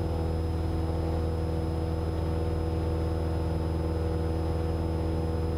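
Cessna 172's piston engine and propeller at full climb power, a steady drone heard inside the cabin.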